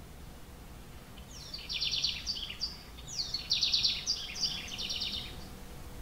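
House wren singing two runs of rapid trills mixed with falling notes. The first run starts about a second in and the second at about three seconds.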